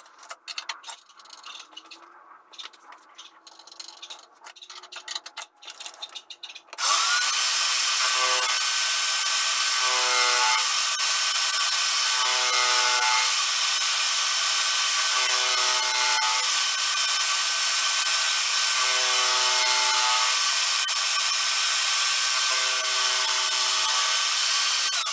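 A few light clicks, then about seven seconds in a high-speed electric milling spindle starts, its pitch rising briefly as it spins up, and runs steadily while its cutter mills a flat on a small steel pin held in the lathe chuck. A lower pitched hum swells in about every three seconds.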